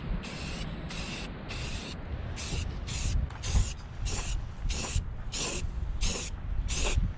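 Aerosol can of automotive primer spraying in short bursts, about two a second, as the nozzle is pressed and released in quick passes. Wind rumbles on the microphone underneath.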